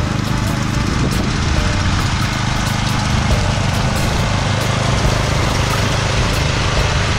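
Walk-behind power trowel's small gasoline engine running steadily and loud as its rotating blades finish a fresh concrete slab.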